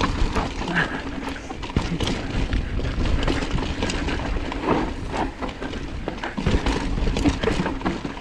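Mountain bike descending a rocky dirt trail: tyres crunching over dirt and stones while the bike rattles with a constant run of small knocks, over a low rumble.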